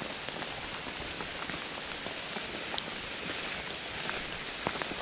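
Steady rain falling, with a few sharper ticks of single drops landing close by.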